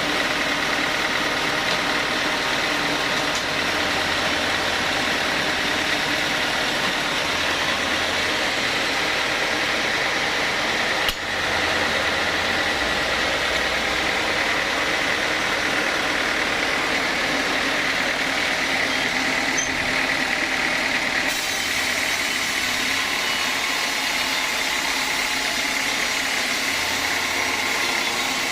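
Sawmill machinery running steadily: a constant mechanical noise with a held whine, and a single sharp click about eleven seconds in.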